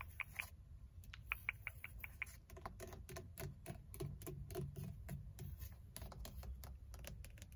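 Long fingernails tapping quickly on the leather-wrapped steering wheel rim and dashboard of a Ford Mustang, in runs of sharp clicks about six a second.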